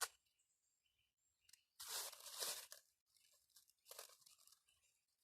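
Duct tape pulled and torn off the roll: a noisy rip about two seconds in, then a shorter, fainter one about two seconds later.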